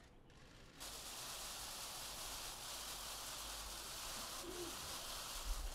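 Steady room noise of a press-conference hall: an even hiss with a low rumble, starting just under a second in.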